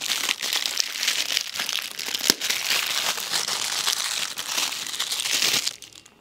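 Clear plastic bag crinkling as a lens hood is worked out of it by hand, with one sharp click about two seconds in. The crinkling stops shortly before the end.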